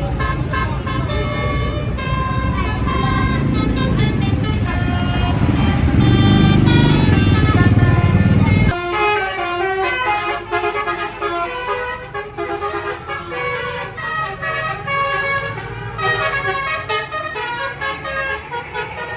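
A bus's multi-tone telolet horn playing a quick melody over the loud rumble of the bus's engine. About nine seconds in the low rumble cuts off abruptly, while the stepped, tune-like tones carry on.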